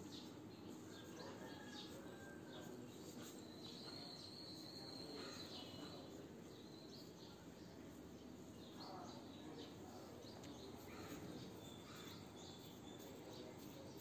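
Faint outdoor background: a low steady hiss with a few faint bird chirps, one held for about a second and a half near the middle.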